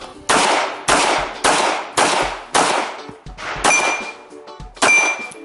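Seven semi-automatic pistol shots at a match stage. Five come in quick succession about half a second apart, then two more about a second apart, and the last two are each followed by a brief high metallic ring.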